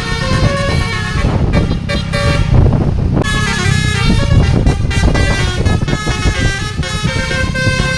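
Bus telolet horn, a Basuri multi-trumpet air horn, playing a tune of changing notes over a heavy rumble of engine and road noise.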